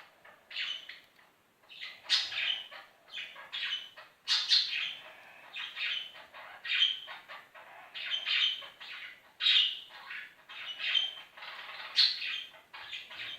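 Slime being squeezed and pulled apart by hand, giving a run of short wet crackling squelches, about one or two a second.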